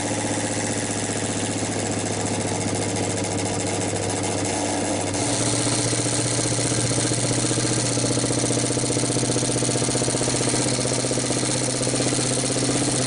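Vibration test machine running steadily, shaking an industrial wireless access point up and down. Its hum steps up louder and slightly higher about five seconds in, and shifts again a few seconds later.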